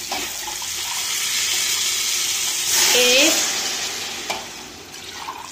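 Water poured from a steel mug into a pot of hot oil, fried chana dal and minced chicken, sizzling on contact. The hiss swells to its loudest about three seconds in, then dies down as the pot cools.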